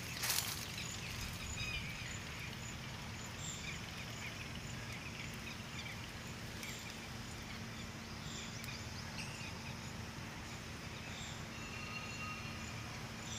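Outdoor ambience: a steady low rumble with faint bird chirps scattered through it, a faint high tick repeating about twice a second, and a brief bump at the very start.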